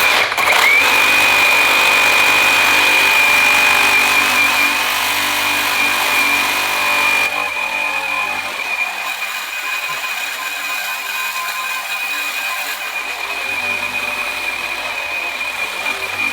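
Cordless reciprocating saw fitted with a Diablo Amped Steel Demon blade, cutting through a hardened steel bearing. It gives a steady high-pitched whine with a rasp of blade on metal, loud at first and easing to a lower level about halfway through.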